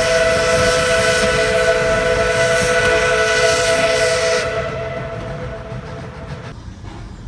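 Steam locomotive whistle held in one long steady blast, sounding several notes at once over a hiss. Most of the notes and the hiss stop about four and a half seconds in, one note lingers a little longer, and the sound fades away near the end.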